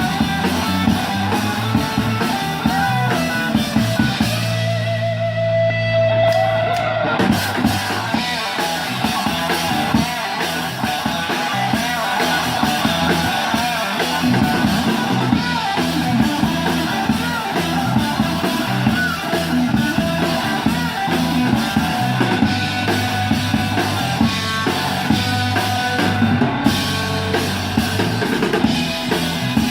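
Live rock band playing: drum kit and guitar with a steady beat. Around four to seven seconds in the drums drop out under a held chord, then the full band comes back in.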